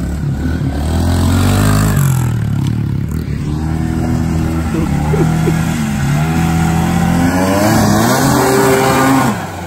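Older snowmobile's two-stroke engine revving up and down, about three rises and falls in pitch, while it is driven across dirt and grass.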